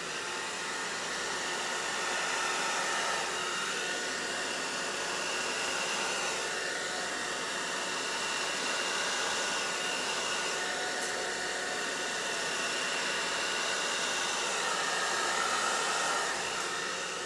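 Hand-held hair dryer blowing steadily with a faint whine, pushing wet acrylic pour paint outward across a canvas to open a bloom. It switches on just at the start and shuts off at the very end.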